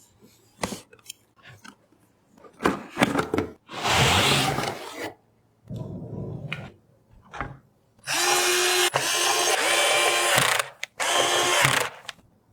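Small electric screwdriver motor running in several bursts of a second or two, the longest about two and a half seconds near the end, with clicks and knocks of parts being handled between them.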